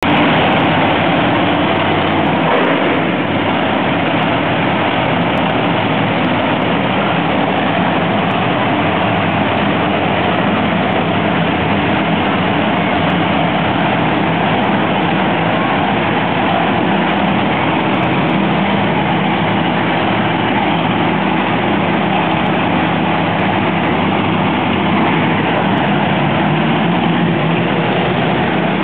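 Monster truck engines running, a loud, steady heavy-engine drone that does not let up.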